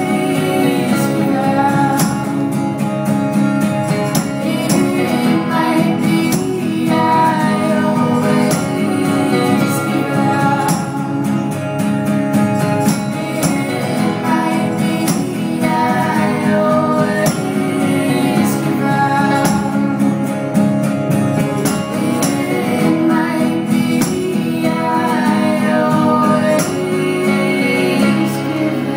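Live indie-folk band playing: strummed acoustic guitar, drums and cymbals, with a female lead vocal and a second female voice.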